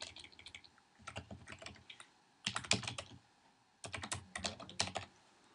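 Typing on a computer keyboard: four short runs of keystrokes with brief pauses between them.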